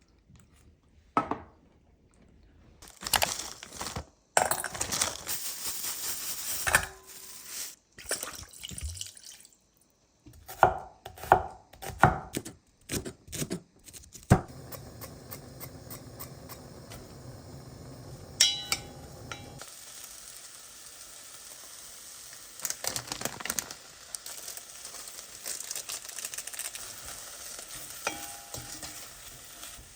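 Kitchen cooking sounds: irregular clattering and knocking of utensils and dishes, then, from about halfway, a steady sizzle of food frying in a pan, with the odd clink of a utensil.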